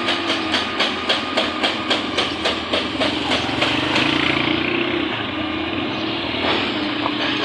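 Heavy road-construction machinery running, with a rhythmic clatter about four times a second that gives way to a steadier mechanical din about three seconds in.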